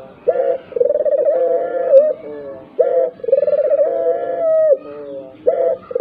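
Barbary dove (burung puter) cooing: a short note, then a long rolling coo, repeated about every two and a half seconds, three times. Each long coo is followed by fainter, lower trailing notes.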